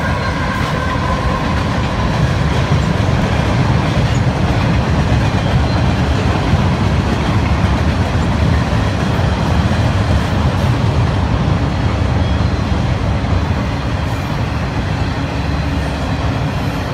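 A freight train passing close by: a diesel locomotive goes by at the start, then a string of container-laden freight cars rolls past in a steady, loud rumble of wheels on rail.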